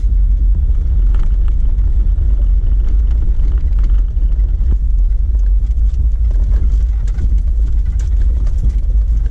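Jeep Wrangler JK driving on a dirt track: a steady low rumble of engine and tyres heard from inside the cabin, with a few light knocks and rattles.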